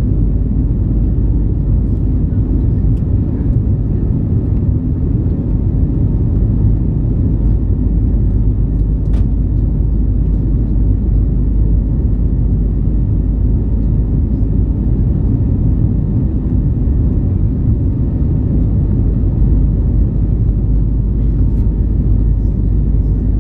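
Steady low cabin rumble of an Airbus A320neo climbing shortly after takeoff: engine and airflow noise heard from a window seat.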